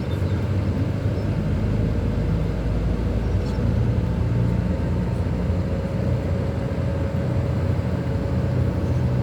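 Steady engine drone and road noise heard from inside a moving vehicle, with a faint steady whine running through it.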